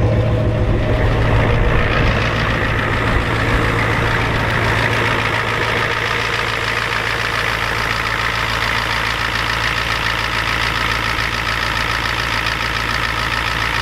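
Ford 7.3 IDI V8 diesel idling steadily with an even, rapid rhythm, running cold just after being started with ether in sub-freezing weather.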